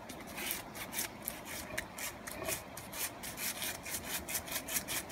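A golden retriever pawing rapidly in a shallow plastic kiddie pool, its claws scraping in quick repeated strokes, about four a second, coming faster near the end.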